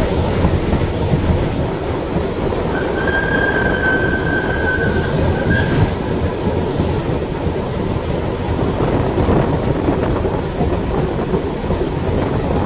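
A train running on the rails with a steady heavy rumble of wheels and carriages. A few seconds in, a steady high-pitched wheel squeal sounds for about three seconds.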